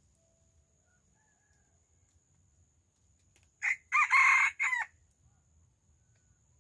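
A rooster crows once, a single crow of a little over a second, broken into a few syllables, about halfway through.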